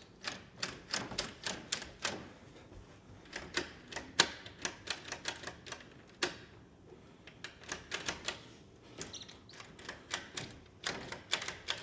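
Door lever handle and latch clicking sharply and irregularly, several clicks a second, as the freshly greased handle is worked up and down.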